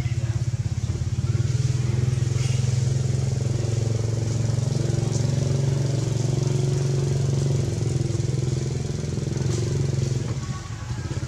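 A small engine running steadily with a low, even hum, dipping briefly near the end.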